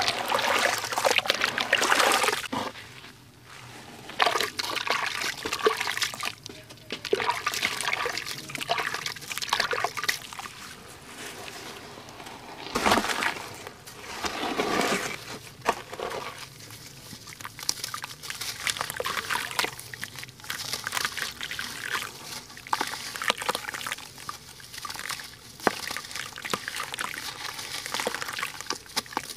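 Hands squeezing, breaking and crumbling soaked sand-cement blocks in a tub of water: irregular sloshing and splashing, with wet grit crackling and trickling back into the water. It is loudest at the start and again about halfway through.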